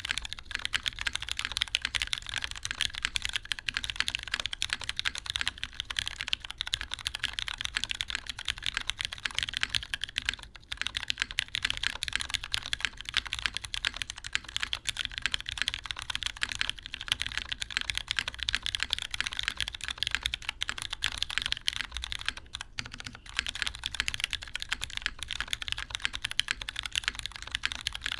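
Continuous typing on a Merisi Works Sessantacinque mechanical keyboard: lubed Butter MX Brown tactile switches on a carbon fibre plate in a top-mount case, with GMK keycaps. Fast, even key clacks, with brief pauses about ten and twenty-two seconds in.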